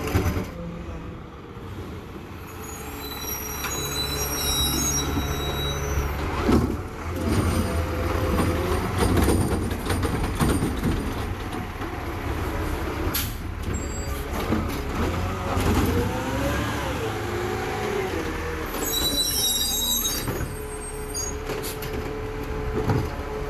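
Garbage truck engine running with rising and falling mechanical whines, and brief high squeals a few seconds in and again near the end.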